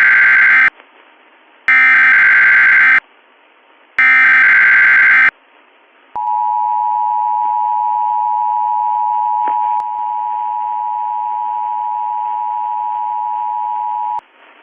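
Emergency Alert System tones: three screeching bursts of digital SAME header data about a second apart, the first already under way, then the steady two-tone attention signal, held about eight seconds and cutting off near the end. The header encodes a Civil Emergency Message, which the operator says was pushed by mistake.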